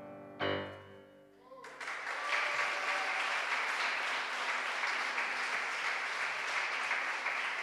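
A song's final chord on keyboard, acoustic guitar and violin, struck about half a second in and dying away, then audience applause from about two seconds in that cuts off suddenly.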